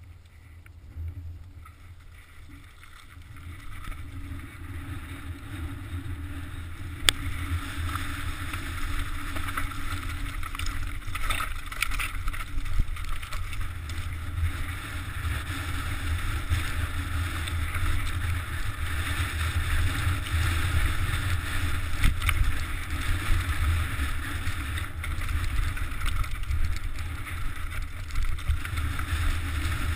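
Mountain bike riding down a rocky, loose-stone trail: wind rumbling on the camera's microphone with the steady crunch and rattle of tyres over stones. It builds from quiet about three seconds in as the bike picks up speed, with one sharp knock about seven seconds in.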